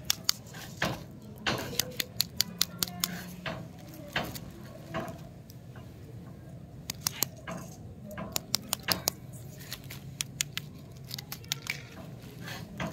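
Wrapped stick lollipops handled between fingers: the wrappers crinkle and click in an irregular run of sharp clicks and rustles.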